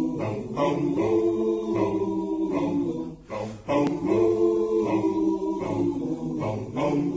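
A cappella vocal group singing close harmony chords over a pulsing rhythm of repeated 'bum bum' syllables, the voices briefly dropping away just past three seconds in.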